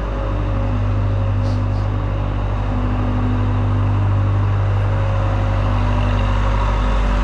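Heavy machinery engine running steadily at one unchanging speed, a loud, low, even drone.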